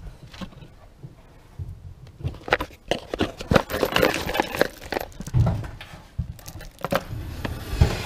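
A hand rummaging in a cardboard box of hex-head roofing screws, the screws clinking and the cardboard rustling in a run of scattered clicks, densest in the middle. A few dull knocks follow near the end.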